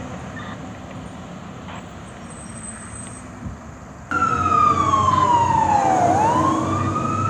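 Fire engine siren cutting in suddenly a little over four seconds in, wailing down in pitch and then turning to sweep back up. Before it, only faint engine and road noise.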